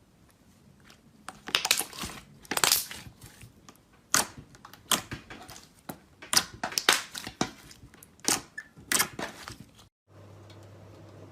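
Slime being squeezed and pressed by hand, a run of crackling, popping squishes. Near the end it cuts to a steady low hum.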